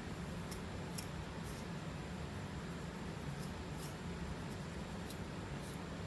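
Fine-tooth comb scraping along a scalp part, lifting built-up dandruff flakes: about seven short, crisp scratching strokes at irregular intervals, over a steady low hum.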